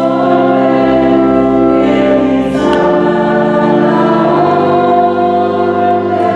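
Choir singing a hymn in slow, held chords that shift every second or two.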